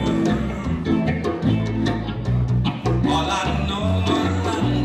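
Live reggae band playing: bass guitar, drum kit, electric guitar and hand drum, with a singer on the microphone.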